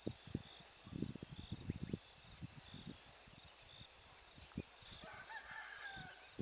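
A rooster crowing faintly once, a drawn-out call about five seconds in. Soft low knocks come and go in the first two seconds.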